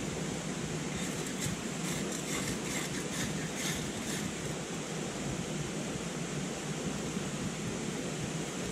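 Steady rushing of river rapids, with a run of short, scratchy strikes, two or three a second, from about a second in until about four seconds in, as a fire is lit by hand.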